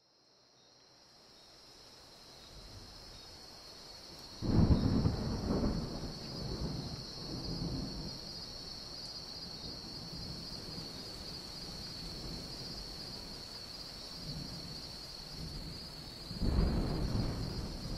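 Thunderstorm: steady rain fading in, with a roll of thunder about four seconds in and another near the end. A steady high-pitched tone lies over it.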